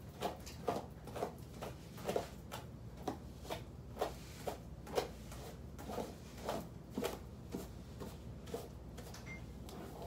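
Long hair being brushed close to the microphone: a run of short scratchy strokes, about two a second, with uneven spacing.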